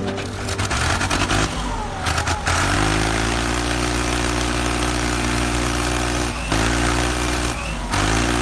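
A motor runs with a steady, even hum under a hiss, breaking off briefly twice near the end.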